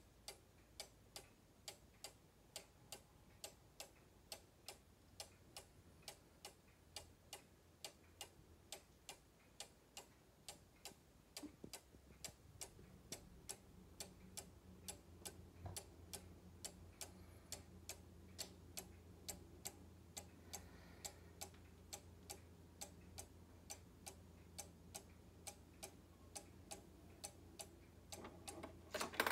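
A weight-driven chalet cuckoo clock's pendulum escapement ticking faintly and steadily, about two ticks a second. A faint low hum comes in about halfway through.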